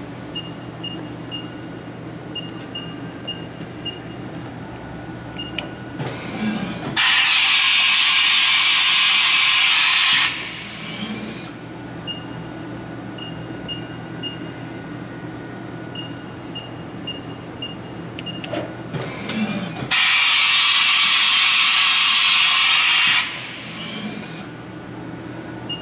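Haas VF-1 vertical machining center running tool changes over its steady hum: rows of light mechanical ticks, and twice a loud hiss of air lasting about three seconds as the tool changer swaps tools.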